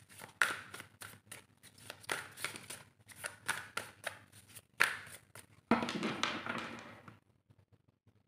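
A deck of tarot cards being shuffled by hand: a quick, uneven run of papery flicks and taps as the cards fall against each other, then one longer sliding rustle of the cards about six seconds in.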